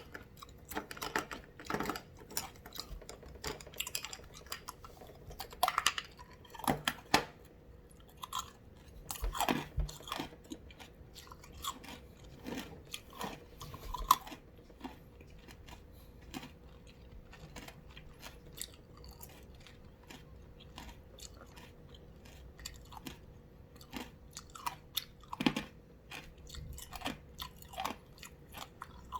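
Ice being crunched and chewed close to the microphone: irregular sharp crunches and bites, thinning to small clicks in a quieter stretch past the middle and picking up again near the end.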